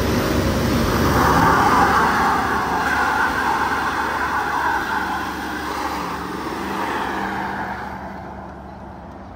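GMC Sierra Denali HD pickup doing a burnout: spinning rear tyres screeching over the engine running hard, the noise loudest in the first half and fading as the truck pulls away.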